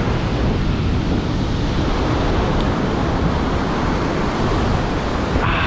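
Ocean surf breaking steadily, with wind rumbling on the microphone.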